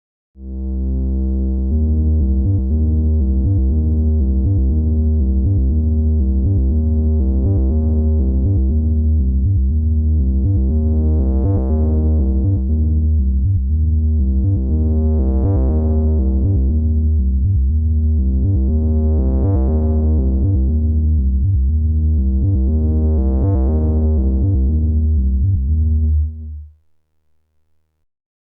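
Dave Smith Evolver hybrid analog/digital synthesizer playing a single sequenced patch: a deep, pulsing bass pattern, its filter opening and closing in sweeps about every four seconds that grow brighter. It cuts off about two seconds before the end.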